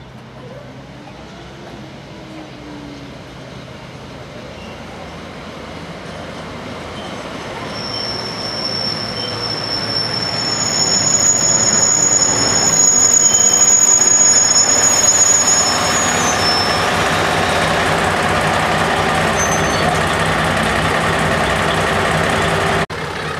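ADK/ADB diesel multiple unit arriving at a station platform, growing steadily louder as it draws in, with a high, steady squeal from the wheels and brakes from about a third of the way in until a little past the middle. After that the train stands with its diesel engines running at a steady note; the sound cuts out for an instant near the end.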